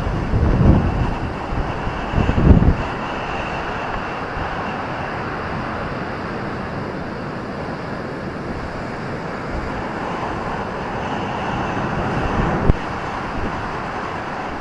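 Ocean surf breaking on a beach: a steady roar of waves that swells again near the end. Low gusts of wind buffet the microphone in the first few seconds.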